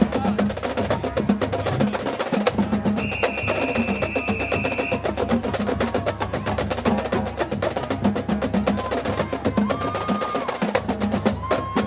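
Marching band percussion playing a steady rhythmic pattern of sharp clicks and drum hits. A held high tone sounds for about two seconds, about three seconds in.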